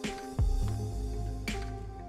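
Background music: held chords, with a deep falling drum hit just under half a second in and a sharp percussive click later.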